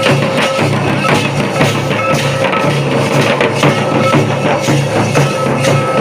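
Odisha tribal dance music, loud and steady, driven by drums beating a regular repeating rhythm.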